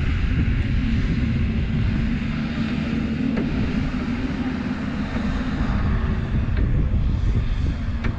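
Excavator's diesel engine running steadily under load, a continuous low drone with a few faint knocks.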